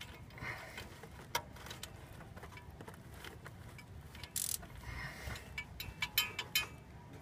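Hand tools clicking and scraping against metal as a spark plug is worked by hand on a Ford 302 V8, in irregular clicks with a few sharper ones about a second in, past the middle and near the end.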